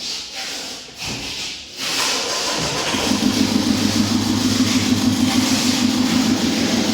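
Mitsubishi 4D56 four-cylinder turbodiesel engine. After a couple of seconds of hissing noise, the engine starts about two and a half seconds in and settles into a steady idle.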